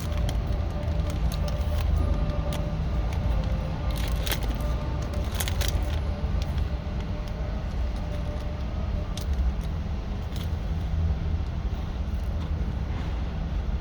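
Someone biting and chewing a crunchy honey biscuit sandwich with peanut butter filling, a scatter of crisp crunches clustered about four to six seconds in. A steady low rumble lies underneath.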